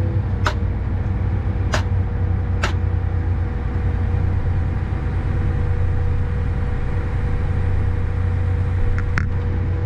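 Tractor engine running steadily, heard from the cab while its hydraulics unfold the planter, with a few sharp clicks.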